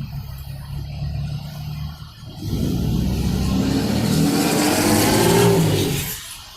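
Motor vehicle engine running low and steady, then accelerating from about two and a half seconds in, its pitch rising and getting louder before cutting off abruptly near the end.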